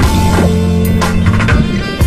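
Background music: a band track with drums and bass under held chords.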